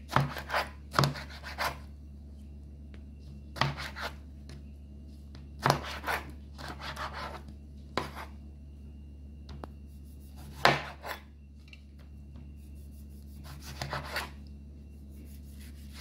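Kitchen knife slicing ripe mango flesh against a cutting board: irregular cutting strokes and taps, singly or in small clusters a second or more apart, over a steady low hum.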